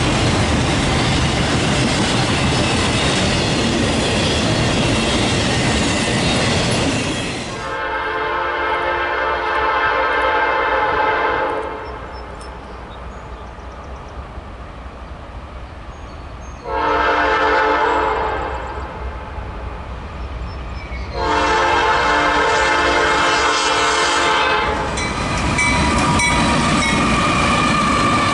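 A train runs past on the rails, then a freight locomotive's multi-chime air horn sounds three times: a long blast, a short one, and another long one. Near the end the rail noise returns with a faint squealing tone from the wheels.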